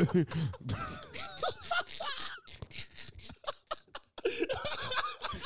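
Men laughing in broken bursts, with a brief lull about three and a half seconds in.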